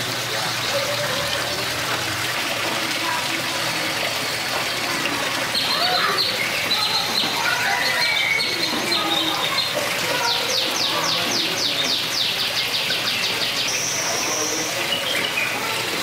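Steady rush of running water from an aviary water feature, with small birds chirping and calling over it. About two-thirds of the way through, one bird gives a fast run of rising chirps, about four or five a second, followed by a brief high whistle.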